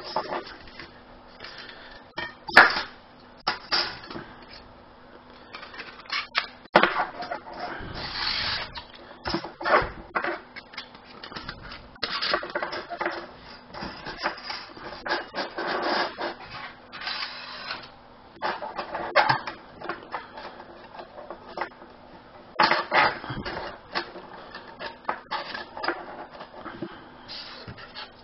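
Thin stainless-steel panels of a Lixada flat-pack box stove clicking, clinking and scraping against each other as they are slotted together by hand. The knocks come irregularly, with short stretches of metal sliding between them.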